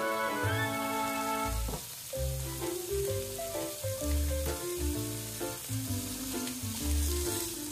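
Background music plays over a steady sizzle of diced bacon frying in a pan. The music holds sustained chords at first, then about two seconds in changes to short stepping notes over a deep bass line.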